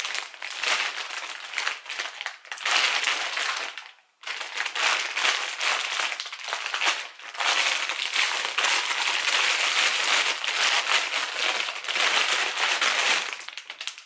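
Plastic parcel bags crinkling and rustling as they are handled and pulled open, with a short pause about four seconds in.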